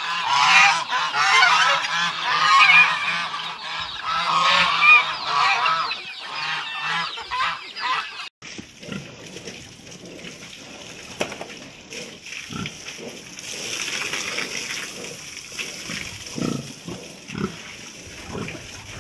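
Geese honking loudly among a crowd of hungry farmyard fowl, ducks and chickens, calling for their overdue feed. About eight seconds in the sound cuts to a quieter steady hiss of a hose spraying water, with scattered low pig grunts.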